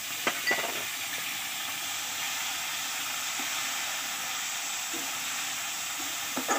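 Hilsa fish heads frying in hot oil in a metal karai, a steady sizzle, with a few short clinks of a metal spatula against the pan about half a second in and again near the end.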